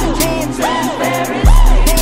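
Music track with a heavy bass kick about one and a half seconds in, fast hi-hat ticks and a synth melody that bends up and down in pitch.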